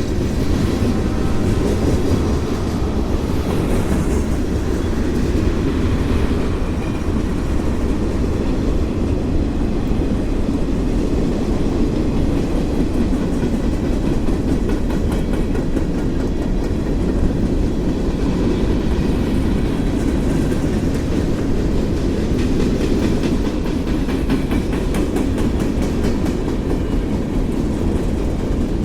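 CSX freight train rolling past on the track, a steady heavy rumble with a dense run of wheel clicks over the rail.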